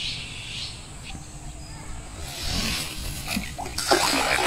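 A cast net splashing down onto pond water about four seconds in, a dense burst of splashing that lasts over a second.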